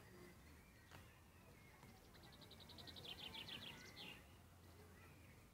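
Faint songbird singing in the background: a rapid trill of about ten notes a second lasting a couple of seconds, ending in a short higher flourish, over a low steady hum.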